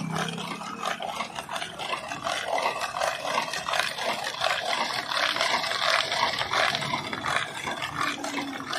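Steel canister being twisted back and forth in a wooden tub packed with ice chunks: a continuous rough grinding and scraping of ice against metal and wood, with rattling of the chunks. The drink inside the canister is being chilled.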